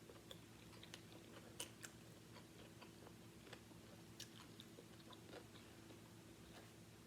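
Faint chewing of a sub sandwich, with soft, scattered mouth clicks over a low steady hum.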